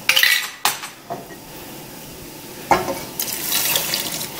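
A few clatters of kitchenware in the first second, then, from nearly three seconds in, home-canned turkey stock poured into a hot stainless-steel pot of softened vegetables, sizzling as it hits the pan.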